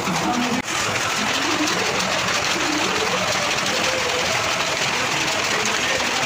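Power loom weaving cotton cloth, running with a steady mechanical clatter from its shuttle, sley and gearing.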